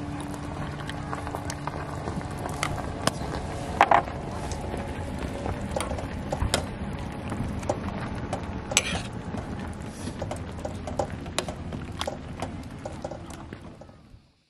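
A pot of vegetable soup simmering: a steady hiss with scattered small pops and clicks, and now and then a metal ladle clinks against the aluminium pot. The sound fades out near the end.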